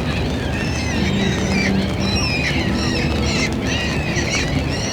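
A flock of birds calling busily, many short rising-and-falling calls overlapping, over a steady low rumble with a brief low engine hum about a second in.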